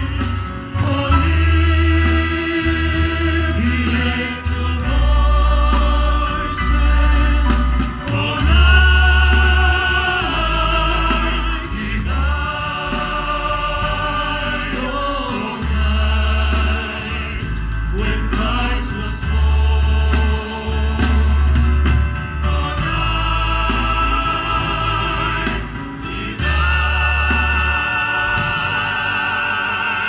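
Classical-style singing with wavering vibrato over musical accompaniment with a heavy, deep bass line.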